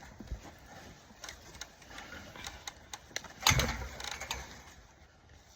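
Irregular clicks and knocks of things being handled, with one loud thump about three and a half seconds in.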